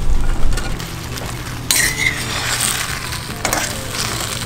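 A metal spatula clinking and scraping in a steel wok as battered fried tuna chunks tumble into simmering sauce and are stirred. A few heavier knocks come at the start, and a brighter hiss comes in from about two seconds in.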